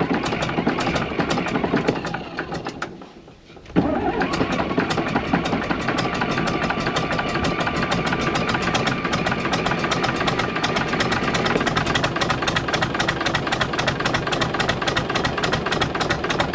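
Fiat-Allis 14B crawler dozer's diesel engine running with a rapid, even firing beat, while low on fuel. The sound falls away about two seconds in and comes back sharply just before four seconds.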